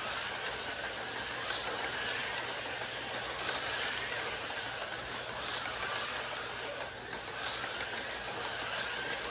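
HO-scale slot cars on AFX Super G+ and Tomy Turbo chassis running laps on a plastic track: a steady high motor whine that rises and falls as the cars go round, over a steady hiss of the cars running in the slots.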